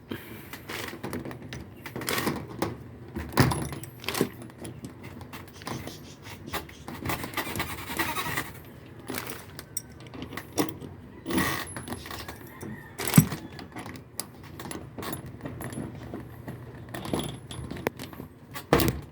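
Irregular clinks, knocks and rattles of objects being handled, the loudest knock about two-thirds of the way through, with a short stretch of rustling near the middle.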